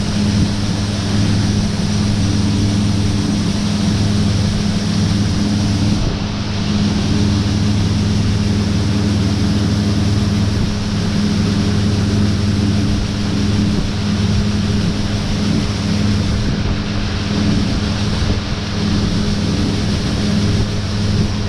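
Tractor and Gleaner combine running steadily at working speed with a constant deep engine hum over a dense rushing noise, as corn is unloaded into a grain cart.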